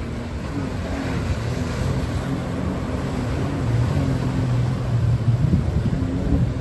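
Watercraft engine running steadily, with wind buffeting the microphone; it grows louder from about four seconds in.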